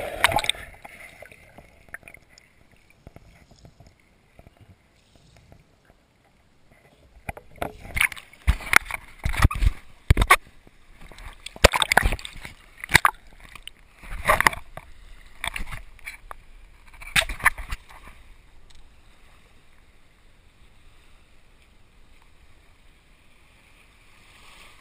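Shallow sea water splashing and sloshing around a camera dipped in and out of the water. It comes in irregular bursts through the middle, with quieter stretches before and after.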